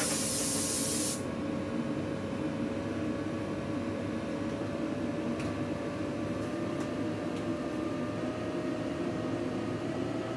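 Water spray hissing at a plating tank, cutting off suddenly about a second in. After it comes a steady drone of plating-line machinery and fume extraction, with a faint tone that slowly rises in pitch and a few faint clicks.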